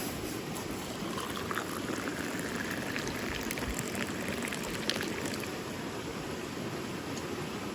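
Liquid being poured into a vessel, its pitch rising as it fills, over a steady rushing background noise, with a few light clicks.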